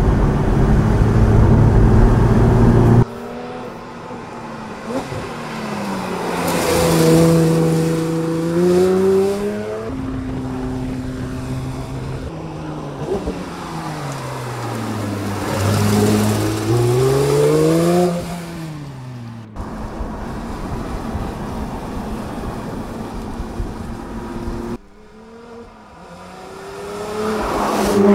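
A 2019 Porsche 911 Speedster's naturally aspirated 4.0-litre flat-six engine driving hard. It is loud and low for the first three seconds, then its note climbs and falls in several long swells as it revs through the gears and passes. It goes quieter near the end before rising again.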